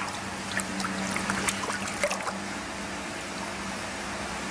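Water trickling and dripping, with small splashy ticks over the first couple of seconds, then a steady wash of water over a constant low hum.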